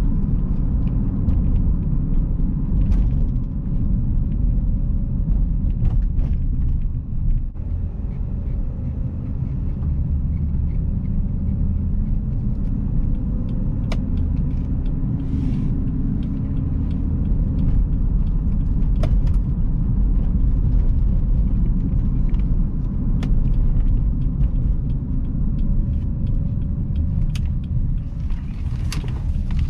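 Cabin noise of a 2011 Jeep Grand Cherokee V6 being driven: a steady low rumble of engine and road, with a few sharp ticks or knocks scattered through it.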